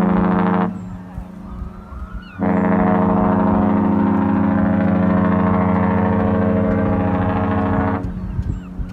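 Cruise ship horn sounding: a blast that stops less than a second in, then after a short pause one long, steady blast of about five and a half seconds.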